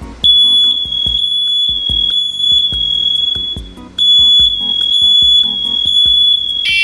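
Smoke alarm sounding its test alarm: a loud, shrill, steady high-pitched tone that starts a moment in and breaks off briefly a little past halfway before sounding again. Near the end a harsher, buzzier alarm tone with several pitches joins in.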